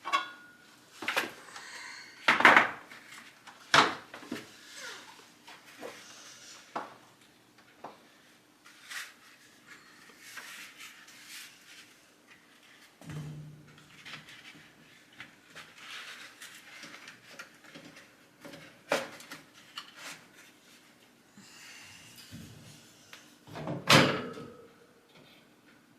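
Handling noises while a furnace air filter is swapped: a series of sharp knocks and clicks with rustling in between, the loudest about two seconds in and again near the end.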